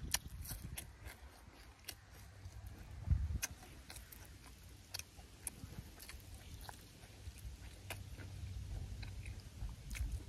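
A person chewing a mouthful of fresh herbs and boiled tripe, with many short wet smacks and clicks of the mouth, and a louder thud about three seconds in.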